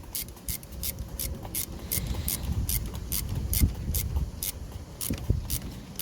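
Socket ratchet with a 10mm socket clicking as it is worked back and forth, tightening the battery's negative terminal clamp. The clicks come evenly, about two to three a second, over low handling rumble.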